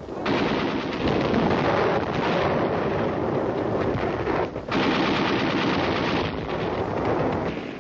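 Continuous rapid machine-gun and small-arms fire, a dense battle din that breaks off briefly about four and a half seconds in and then resumes.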